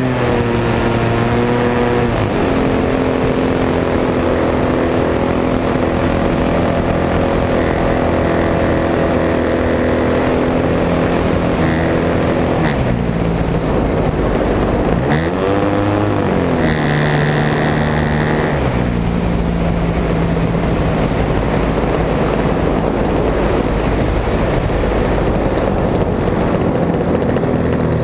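Petrol engine of an RC Piper L-4 Grasshopper model plane running close to the onboard camera. It runs steady at part throttle, dropping in pitch about two seconds in. Around the middle it twice dips sharply and climbs back as the throttle is worked, then settles at a lower, steady drone.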